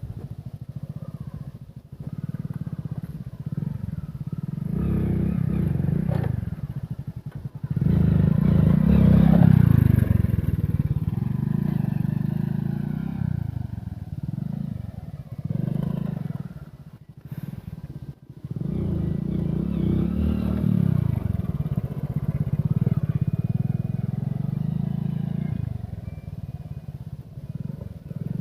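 Hero Splendor motorcycle's small single-cylinder four-stroke engine revving up and down repeatedly as it is ridden off-road, with brief drops in throttle about a quarter, half and two-thirds of the way through.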